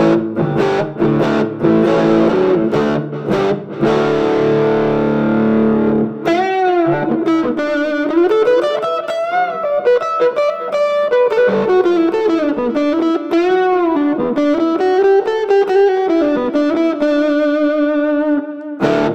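Electric guitar, an Oscar Schmidt OS-50, played through a Fender Mustang LT25 modelling amp on its 'Angry Champ' preset with a metal-gate noise gate. About six seconds of strummed chords give way to a single-note lead line with string bends, which ends on a long held note.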